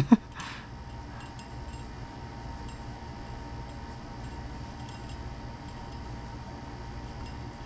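Faint light clicks of small metal and plastic parts being handled as a steel caliper is set against an RC car's turnbuckle to check its length, over a steady low hum. A single sharp click comes right at the start.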